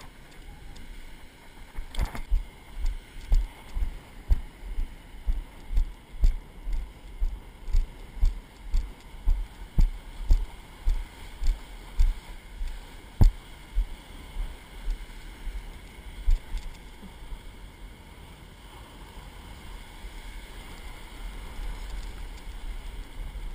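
Footsteps on wet beach sand, about two a second, picked up as dull thumps by a body-worn camera. About two-thirds of the way through they stop and the steady wash of breaking surf takes over, growing toward the end.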